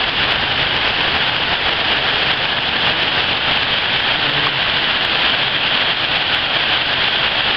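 Torrential rain pouring steadily onto waterlogged ground and standing water, a dense, even hiss.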